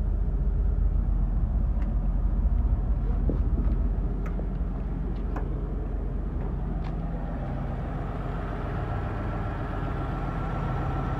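Chevrolet pickup's freshly installed engine idling steadily, a little louder in the first few seconds, with a few faint clicks over it.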